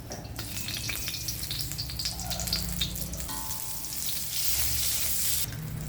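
Butter and cooking oil sizzling in a hot pan, with scattered small pops and crackles; the sizzle swells louder for about a second near the end.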